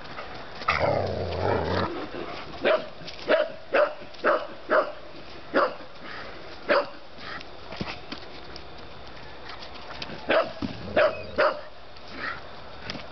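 Dogs at play barking: after a loud rough burst about a second in, a run of short sharp barks comes in two bunches, seven close together and then four more near the end.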